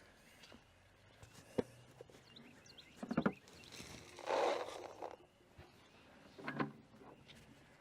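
Spring peepers calling faintly, short rising peeps scattered in the background, over a few thumps and scuffs, with a louder rushing noise about four seconds in.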